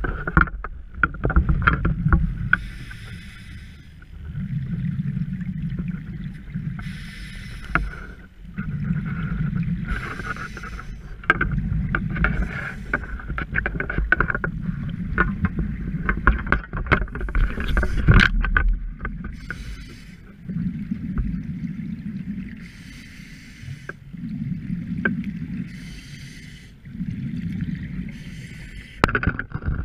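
Scuba diver breathing through a regulator underwater: a hissing inhale and a rumbling burst of exhaled bubbles, repeating about every three to four seconds, with scattered clicks and knocks.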